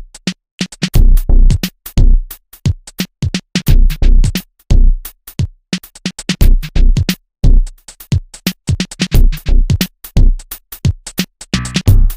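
Background electronic music with a drum-machine beat and deep bass hits.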